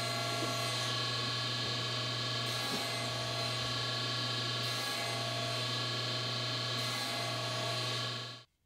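Table saw running steadily with a constant motor hum while a series of shallow passes over the lowered blade clears out a notch in a wooden block. The sound cuts off suddenly near the end.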